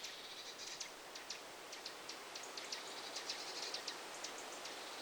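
Songbird calling with rapid, short, high chirps, several a second, over a steady background hiss. The species is unidentified.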